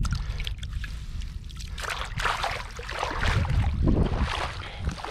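Water splashing and dripping in irregular bursts as a gill net is hauled in by hand, over a steady low rumble of wind on the microphone.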